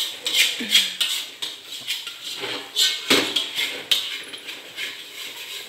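Metal spatula clanking and scraping against a wok while stir-frying, in quick irregular strokes with one louder clatter about three seconds in.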